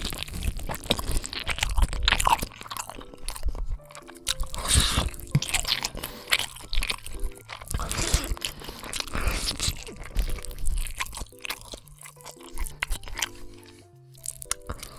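Zombie sound effect of crunching, chewing and biting into flesh, in dense, irregular bursts, over a low droning music bed.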